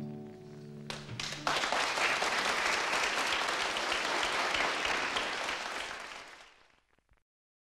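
Music ends about a second and a half in, and an audience breaks into applause, which fades out near the end.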